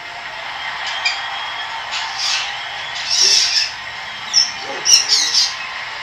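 Pet black bird giving a string of short, high squawks and chirps. The longest call comes about three seconds in, and a quick cluster of calls comes near the end.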